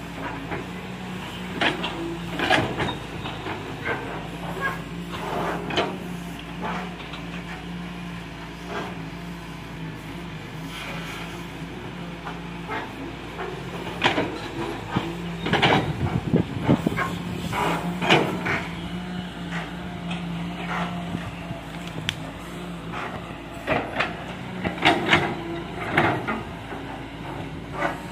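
Caterpillar 320C hydraulic excavator's diesel engine running steadily under load, with irregular clattering and scraping of soil and rock as the bucket digs and dumps. The clatter comes in spells, heaviest about halfway through and again near the end.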